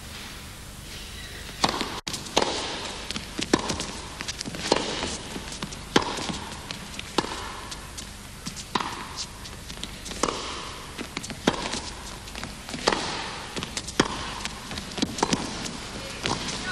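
A long tennis rally: sharp pops of the ball off the racquet strings about every second and a quarter, with softer ball bounces between them.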